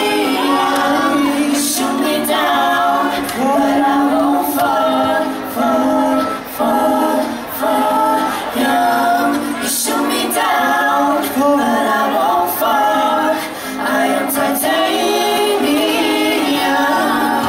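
Several young female singers performing a pop song live in close harmony, with a light band accompaniment and a steady beat of sharp hits about once a second.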